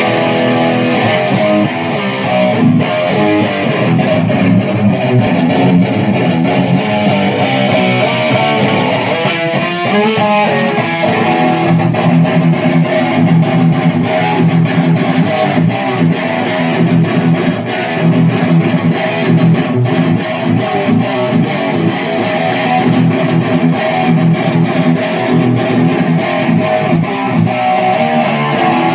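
PRS electric guitar played through a Zoom G3Xn multi-effects pedal's Marshall JCM800 amp model into a Laney LV300 amplifier, playing chords continuously, with a quicker passage of changing notes about nine seconds in.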